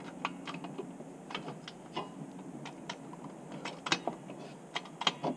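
Irregular metallic clicks and clunks from a car jack and a steel tow-bar cross-member being shifted against the underside of the car to line up with the mounting holes, with a few sharper knocks about four and five seconds in.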